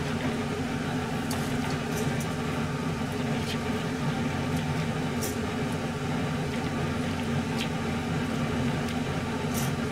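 A steady mechanical hum with a low droning tone, like an appliance or fan motor running, with a few faint clicks scattered through it.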